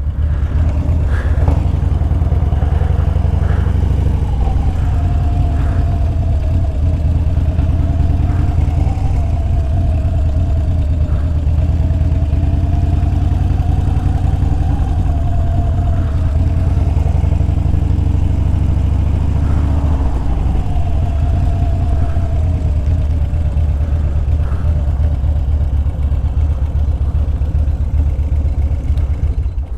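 Harley-Davidson Street Bob's V-twin engine running steadily with a deep, even rumble, not revved, and a faint wavering whine above it.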